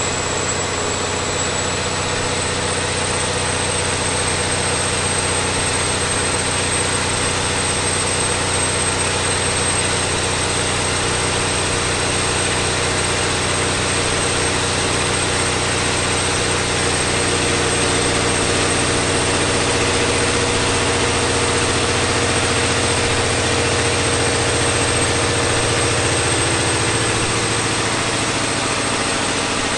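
Caterpillar 3508B V8 diesel engine running steadily on a dynamometer, with a high whine held over the engine noise that rises slightly about two seconds in.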